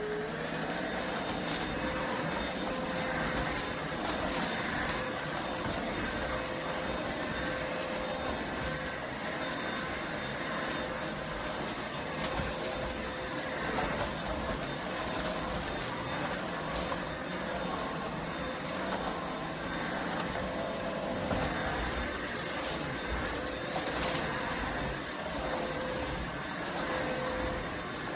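Vacuum cleaner motor running steadily, a constant rushing whir with a faint whine that drops in and out as the level rises and falls a little.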